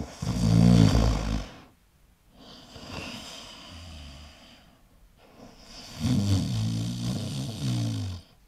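A person snoring: two long, low snores about five seconds apart, with a quieter, softer breath between them.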